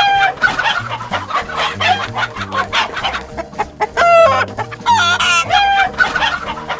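Cartoon sound effect of chickens clucking rapidly, with longer pitched squawks about four and five seconds in, over a bouncy background music bass line.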